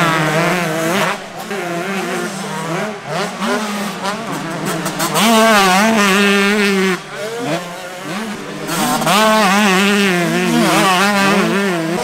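125cc two-stroke motocross bike engines revving hard, their pitch swinging sharply up and down as the throttle is worked. The sound is loudest during three close passes: at the start, in the middle and near the end.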